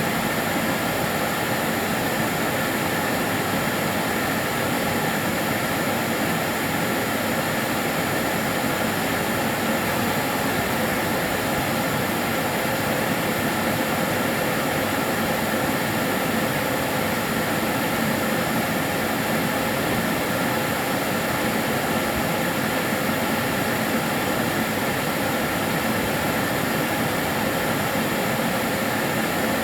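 Karcher DS 6 Premium water-filter vacuum cleaner running steadily, its motor giving a constant rushing noise with a few held whining tones through it.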